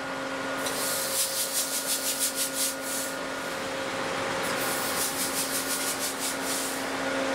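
Ship's engine-room generator engine, which supplies the ship's electric power, running with a steady droning hum. Over it a rapid pulsing hiss comes in twice, for a few seconds each time.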